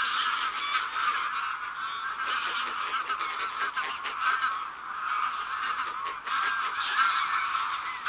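A large flock of greylag geese honking, many calls overlapping without a break.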